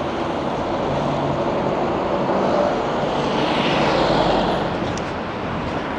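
A lorry driving past close by over steady street traffic noise. Its rush swells to a peak about four seconds in, with a low rumble, then fades.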